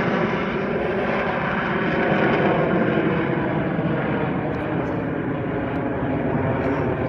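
Aircraft engine noise from an airplane flying overhead. It is loud and steady, with the higher part of the sound slowly dying away as the plane moves off.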